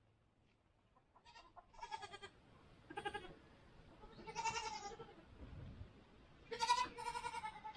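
Goat bleating repeatedly: a series of short, wavering bleats a second or so apart, starting about a second in, with the loudest two near the end.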